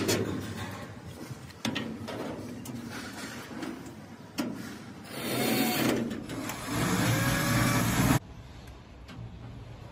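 Sharp knocks and clicks of tools and parts being handled, then two short runs of a small electric motor, the second rising slightly in pitch and cutting off suddenly.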